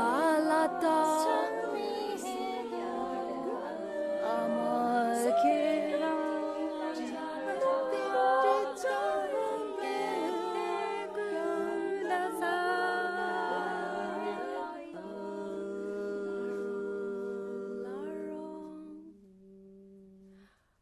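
Women's voices singing and humming a cappella in several overlapping parts over a long-held low note, fading out near the end.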